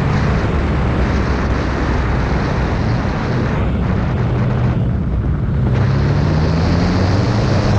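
2014 Yamaha FZ-09's three-cylinder engine running under way, with heavy wind noise on the microphone. The wind rush eases for a moment in the middle, and the engine pitch climbs near the end as it accelerates.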